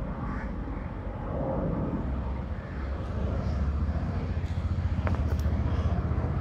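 Airliner passing overhead: a steady low rumble that grows louder about two-thirds of the way through.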